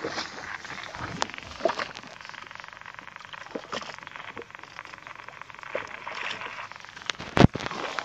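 Sea water lapping and splashing against a small boat's hull, with scattered light clicks and one loud thump about seven and a half seconds in.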